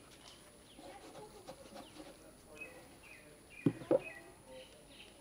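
Birds chirping, with two sharp knocks close together about three and a half seconds in as a knife cuts through grilled chicken onto a wooden board.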